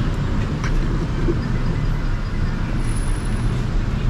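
Street traffic noise: a steady, unbroken sound of motor vehicles on a busy road.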